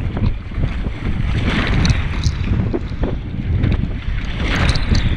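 Wind buffeting the microphone over water rushing and splashing along the hull of a Hobie Adventure Island sailing kayak under way at sea. The rush of spray swells twice, about a second and a half in and again near the end.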